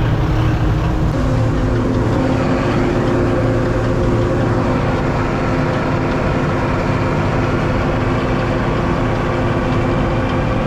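Diesel engine of farm harvesting machinery running steadily under working load, a continuous drone whose note shifts slightly about a second in; its oil pressure and temperatures are holding normal.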